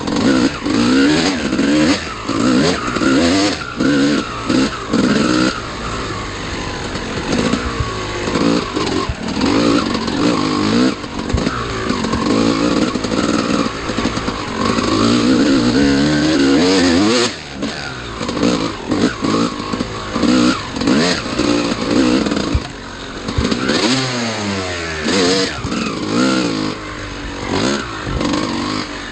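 Dirt bike engine being ridden hard, the revs rising and falling over and over as the throttle is opened and closed, with one longer drop in revs near the end. Knocks and rattles from the bike bouncing over rough ground.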